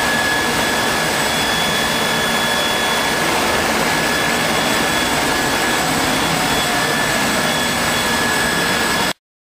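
5-axis CNC milling machine running: a steady hiss with a high, steady whine over it, cutting off abruptly about nine seconds in.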